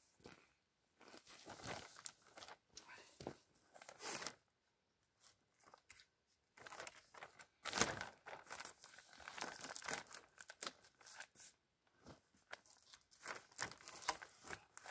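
Heavy black plastic drum liners crinkling and rustling in irregular bursts as they are handled and pulled.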